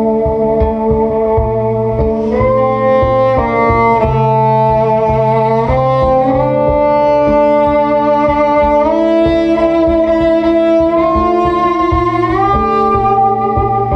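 NS Design CR6 electric cello played with a bow in a layered loop performance. Several sustained notes sound at once, the chords shifting every few seconds, over a quick repeating low pulse.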